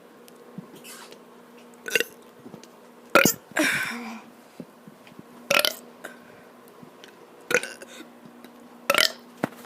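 A boy with the hiccups making a string of about seven short, sharp burps and hiccups a second or two apart, with one longer burp about three and a half seconds in.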